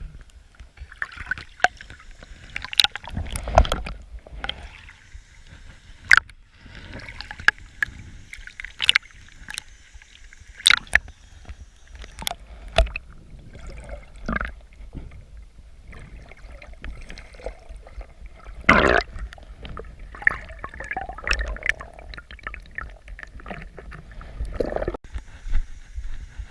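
Water splashing and sloshing with irregular knocks and clicks, the sharpest about three and a half seconds in and again near nineteen seconds.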